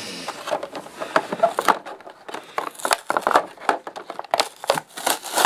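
A toy's plastic blister pack and cardboard backing card being pulled and torn open by hand: irregular crinkling and crackling of plastic with tearing card.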